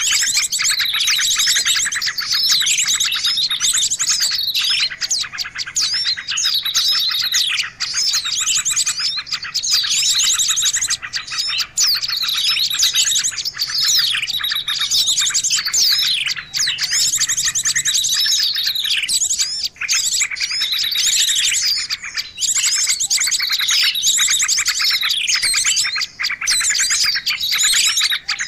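Dense chorus of small songbirds chirping without pause, many calls overlapping, with repeated quick falling notes: a mixed small-bird lure recording used to attract wild birds.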